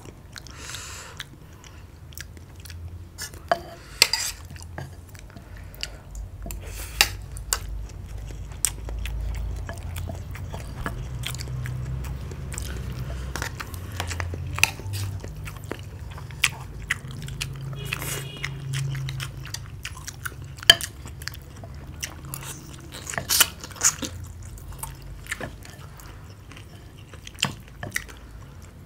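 Close-up eating sounds of fried rice and stew: chewing, with frequent sharp clinks and scrapes of metal spoons against ceramic plates and a soup bowl.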